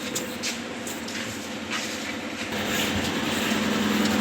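A vehicle engine running, its steady hum growing louder from about halfway through.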